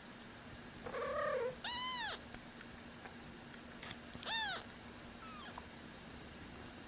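Newborn kitten, about twelve days old, mewing: a rough cry about a second in, then two high, clear mews that rise and fall, and a faint short one after them.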